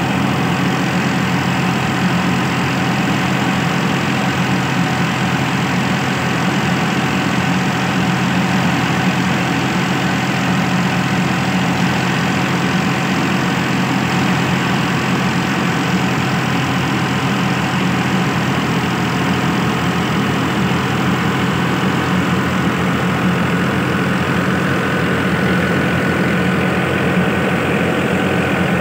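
Tractor diesel engine running steadily at a constant speed while driving a wheat thresher, a continuous even drone with no change in pitch.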